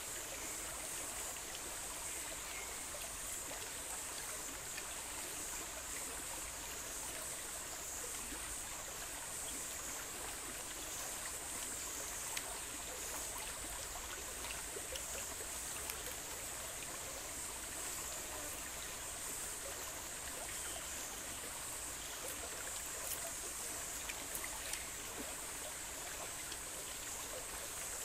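Shallow stream running over rocks: a steady rush of water with a continuous high hiss above it. A few faint clicks from handling food come through here and there.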